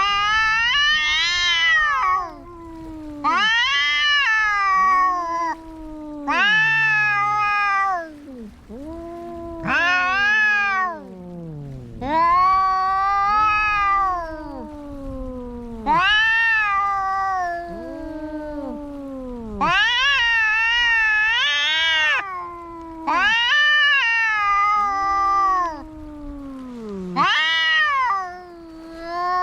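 Cats caterwauling in a fight: long, wavering yowls come about every three seconds, each rising and then falling in pitch, with lower, drawn-out wails overlapping them.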